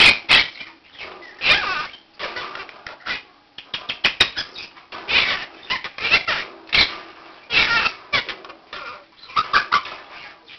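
Quaker parakeet giving a run of loud, harsh squawks and chattering calls, one after another with short gaps.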